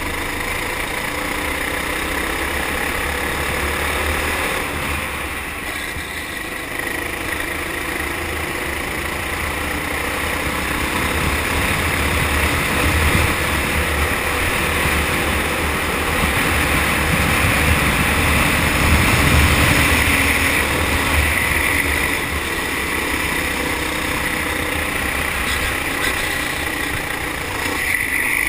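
Four-stroke kart engine running under way on track, its revs rising and falling through the corners, loudest about two-thirds of the way in.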